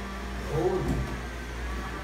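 Automat RoboVac robot vacuum running, a steady low motor hum, with a short burst of voice about half a second in.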